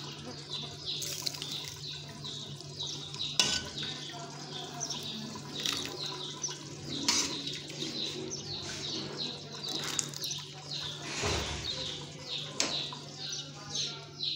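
Small birds chirping over and over, quick high notes that slide downward, over a steady low hum. A few sharp knocks come through.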